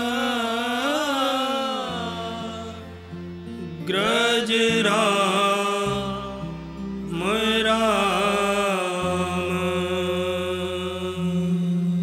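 A man sings a slow devotional bhajan in long, ornamented phrases, three of them, over harmonium chords held between the phrases.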